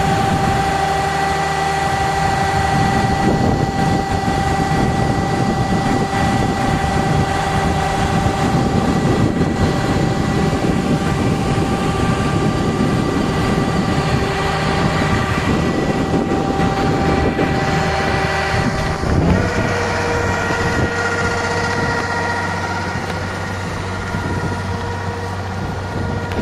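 Farm machine engines running steadily while a combine harvester's unloading auger discharges paddy into a carrying tank. About two-thirds of the way through, a short rising sweep leads to a new, steady engine note.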